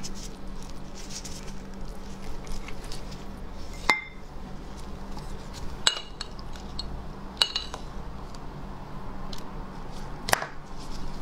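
Four sharp metallic clinks against a metal serving bowl, a second or two apart, as gloved hands pull boiled lamb ribs apart, with faint handling noise of the meat between them.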